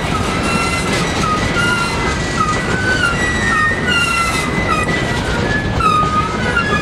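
Empty covered hopper cars rolling past close by: a steady rumble of steel wheels on the rail, with repeated short, high-pitched wheel squeals coming and going over it.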